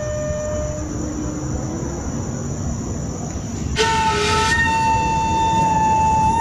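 Solo flute music: a held note fades away just under a second in, a faint low note follows, and about four seconds in a breathy attack opens a long, strong held note, over a steady low hiss.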